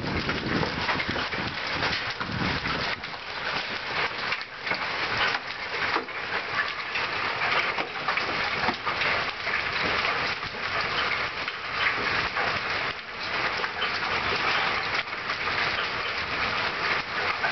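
Hail and heavy rain pelting a paved yard: a dense, steady clatter of countless small impacts over a hiss of falling water.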